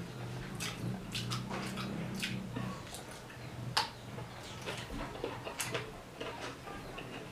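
Close-miked eating: wet bites, chewing and lip-smacking on soft slices of ripe fruit, a run of short sharp mouth clicks with one louder smack a little before the middle.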